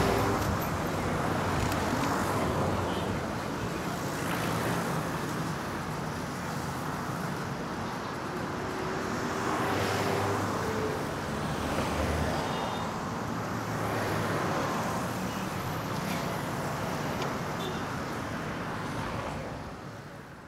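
Street traffic: a steady hum of road noise with vehicles passing by every few seconds, fading out near the end.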